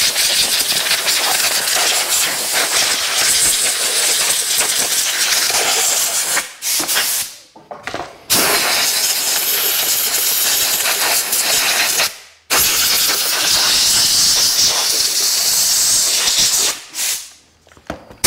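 Compressed-air blow gun hissing in long blasts, blowing dirt off a string trimmer's engine. The air cuts off briefly about six and a half seconds in and again about twelve seconds in, and stops near the end.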